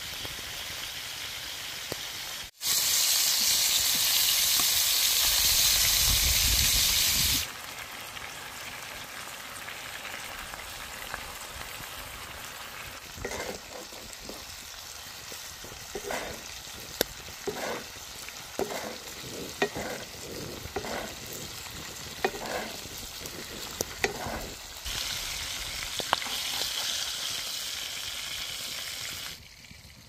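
Steak sizzling in hot fat with thyme and garlic in a cast-iron skillet. A loud burst of sizzling comes a few seconds in, then the frying settles to a steady sizzle. A wooden spoon scrapes against the pan a dozen or so times as the fat is spooned over the meat, and the sizzle swells again near the end.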